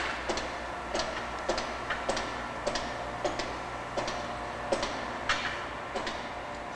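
Evenly spaced metallic clicks, about three every two seconds, from a hoist ratcheting as it slowly draws the turbocharger rotor shaft out on a wire rope.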